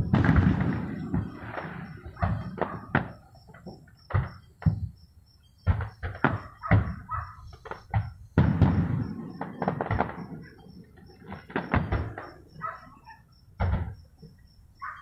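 Aerial fireworks bursting: a run of heavy booms with rumbling tails and, between them, quick clusters of sharp crackling snaps.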